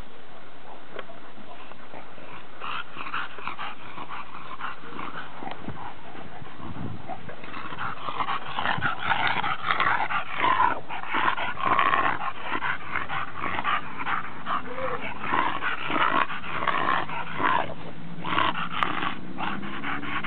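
Dogs growling and vocalising, the sounds coming thicker and louder from about eight seconds in.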